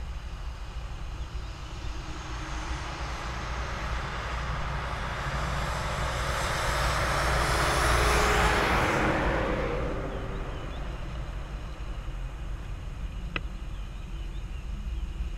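A vehicle passing by on the road, its rushing noise swelling to a peak about eight seconds in and fading away, over the steady low rumble of an idling truck engine. A single sharp click near the end.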